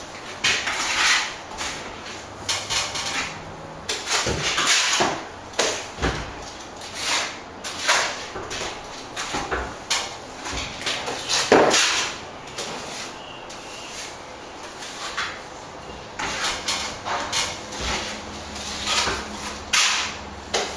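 Lime mortar being scraped out of a plastic bucket and worked onto brickwork by hand: irregular scraping strokes, roughly one a second, some louder than others.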